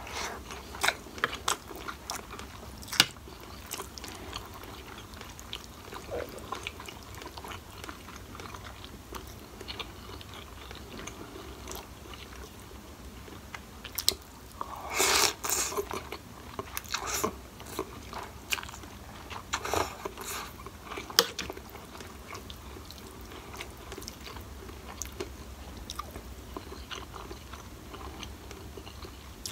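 Close-up mouth sounds of a person eating instant curry noodles, fried tofu and rice: steady chewing with many sharp wet clicks and smacks. About 15 seconds in, a longer, louder burst as a spoonful of noodles is slurped in.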